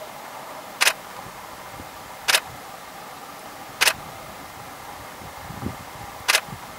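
Four sharp clicks, each a quick double click, coming at uneven intervals over a steady hum.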